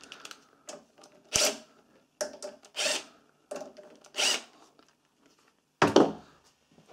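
A cordless drill-driver is run in several short bursts, with clicks and knocks from handling, as it works the ignition coil's mounting bolts on a small Honda GX-series engine.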